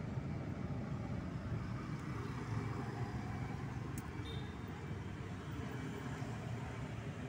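Steady low background rumble, with a single short click about four seconds in.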